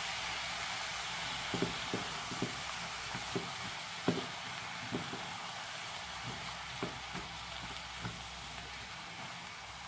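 Chopped vegetables (onion, carrot, tomato) frying in oil in a saucepan with a steady sizzle. A spatula stirring against the pan gives short knocks at irregular intervals, about one or two a second.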